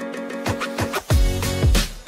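Outro music with a beat starts abruptly out of silence: repeated deep bass thumps and bright cymbal-like hits over held chords.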